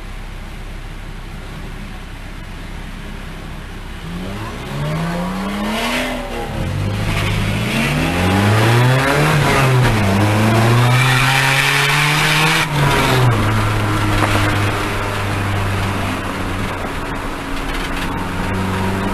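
Car engine heard from inside the cabin. It idles steadily, then revs up and down in a series of rising sweeps from about four seconds in, loudest in the middle, and settles to a steady cruising note near the end. A broad rushing hiss rides over the hardest revving, which could be tyre noise.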